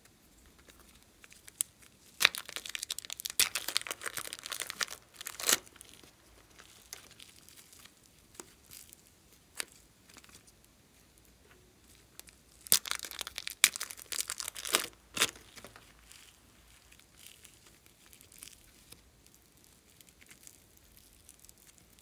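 Thin plastic bags crinkling and tearing as they are peeled off soft modelling clay, in two bursts of several seconds each, about two seconds in and again about twelve seconds in, with light crackling handling between.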